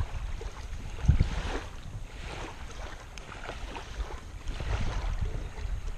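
Wind buffeting the microphone as a low rumble that gusts, loudest about a second in and again near the end, with soft swishes every second or so.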